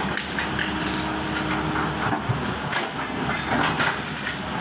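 Hydraulic crawler excavator's diesel engine running under load as the boom and bucket move, with a steady whine for the first couple of seconds and scattered metallic clanks and rattles.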